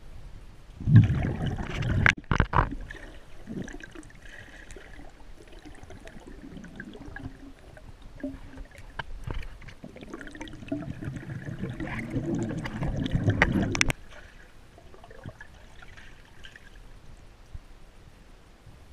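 Muffled underwater sound picked up through a GoPro's sealed underwater housing: water sloshing and swishing against it as it is moved, with a few sharp knocks and clicks of handling. A louder stretch of rushing water in the second half cuts off suddenly with a click.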